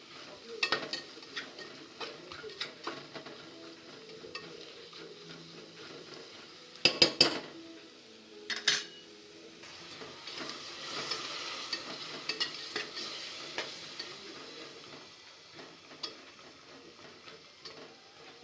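Metal spoon stirring and scraping in a cooking pot while food sizzles, with a few loud clanks about seven and nine seconds in. The sizzle grows louder for a few seconds in the middle.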